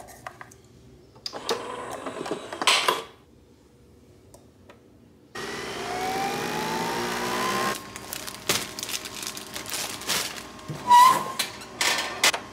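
Capsule coffee machine: clicks as the lid is shut, then the machine runs for about two seconds with a slowly rising whine as it brews into a mug. After that come kitchen clicks and knocks, the loudest a sharp clink about eleven seconds in.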